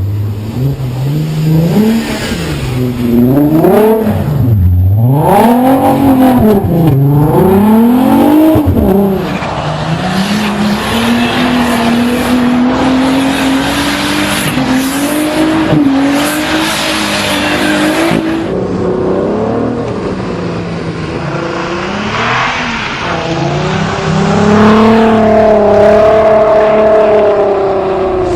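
Volkswagen Golf R32's VR6 engine revving up and down in quick swings while drifting on snow, then held at high revs over a hiss of spinning tyres in snow, in several clips cut together.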